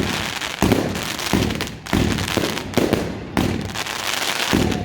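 Compound fireworks cake (Snowstorm 2.0, 80 shots) firing, with loud sharp reports coming about every half second.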